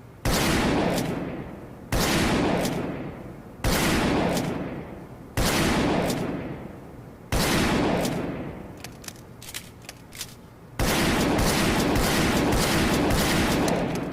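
New Army revolver gunshot sound effect: six sudden shots, each with a long fading echo, spaced about two seconds apart. A few light clicks come just before the last shot, whose echo holds on longer.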